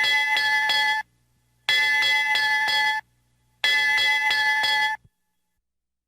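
A bell rung in three bursts of quick repeated strikes, each burst lasting a little over a second with a short pause between. It stops about five seconds in.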